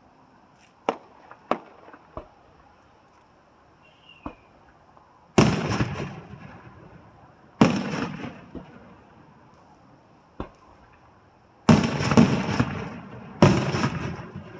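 Aerial fireworks shells bursting overhead: a few short sharp cracks in the first seconds, then from about five seconds in several heavy booms, each trailing off in a long rumbling echo, two of them close together near the end.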